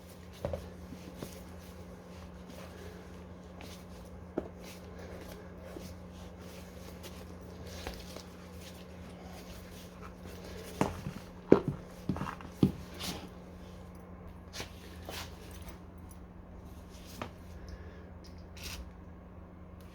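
Scattered knocks and clinks of hand tools and scooter parts being handled, with a quick cluster of louder knocks about eleven to thirteen seconds in, over a steady low hum.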